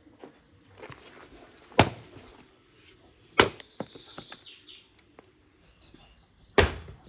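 Axe chopping firewood on a chopping block: three sharp strikes of the blade into the log, the second about a second and a half after the first and the third about three seconds later.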